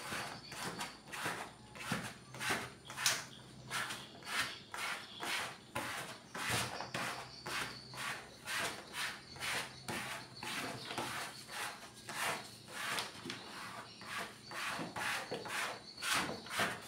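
Hand-held pad rubbing back and forth over adhesive wood-grain vinyl film, pressing it down onto a cabinet top: quick, even rubbing strokes, about two or three a second.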